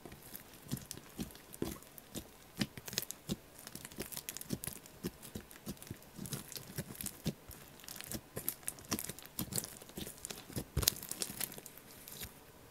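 Heavy homemade slime being squished, stretched and folded in the hands, giving an irregular run of sticky clicks and small pops, several a second.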